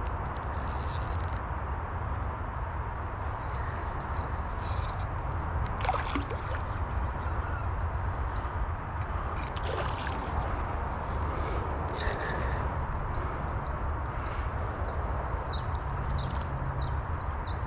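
A hooked fish splashing and thrashing at the surface a few times while being reeled in, over a steady low rumble and hiss. A small bird sings repeated short high chirps.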